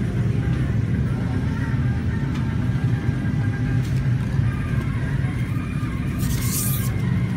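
Steady low rumble of road traffic, with a short burst of hiss about six seconds in.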